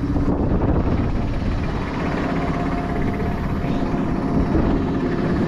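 Tractor engine running steadily, an even low rumble, with a faint steady whine joining about two seconds in.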